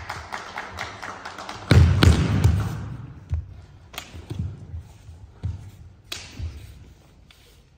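Kendo bout on a wooden sports-hall floor: quick knocks and taps of bamboo shinai at first, then a loud cluster of heavy foot stamps and strikes about two seconds in. Scattered single knocks follow and fade away.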